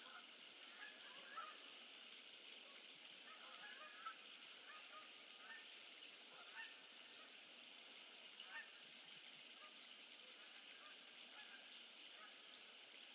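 Faint bird calls, short and scattered every second or so, over a steady hiss.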